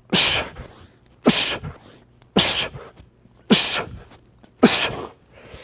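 Five sharp, forceful exhalations, about one a second, one on each push of a knee push-up.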